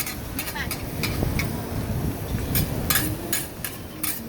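Metal spatulas clinking and scraping on a hot okonomiyaki griddle in quick, uneven strokes, over background voices.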